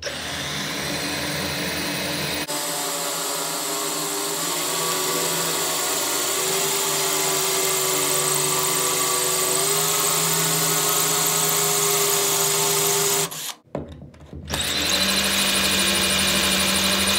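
Cordless drill running steadily with a spear-point tile bit, boring a small hole through ceramic wall tile. The drill stops for about a second near the end, then starts again.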